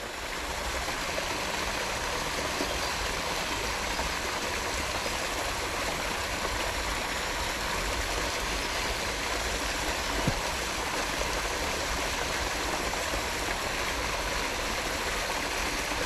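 Steady rush of flowing water, such as a stream or outflow pouring into the river, with one faint click about ten seconds in.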